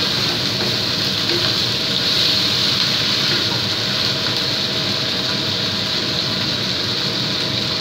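Chicken and onions frying in a wok over a gas burner: a steady sizzling hiss.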